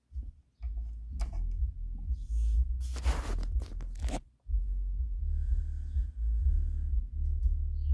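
Klipsch SW-450 10-inch powered subwoofer playing the deep bass of music, a pulsing low bass line. A loud scratchy crackle comes in about three seconds in, and the bass cuts out for a moment just after.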